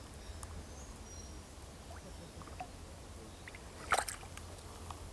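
Quiet waterside with faint small water sounds and one short, sharp splash about four seconds in.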